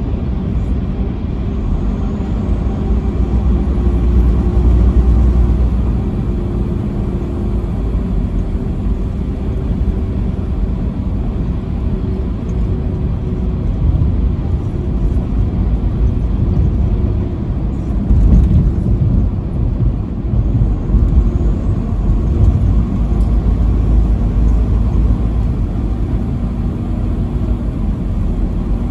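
Vehicle driving on a highway: a steady low rumble of engine and tyre noise, with a louder swell about 18 seconds in.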